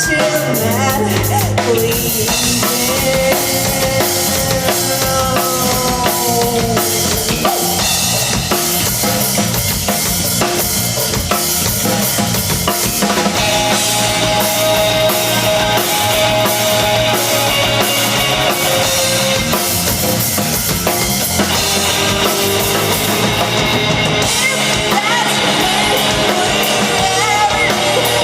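Rock band playing an instrumental passage of a song, with the drum kit (bass drum and snare) to the fore and a bending melodic line played over it.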